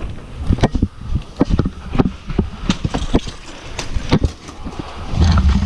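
Footsteps and gear knocking close to a body-worn camera as the player moves: irregular sharp knocks, two or three a second. A louder low rumble comes near the end.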